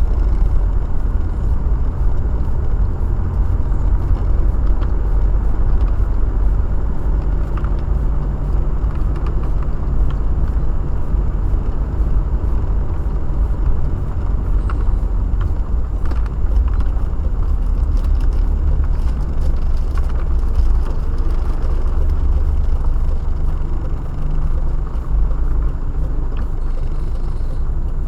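A car being driven, heard from inside the cabin: a steady low rumble of road and engine noise, with many small scattered ticks over it.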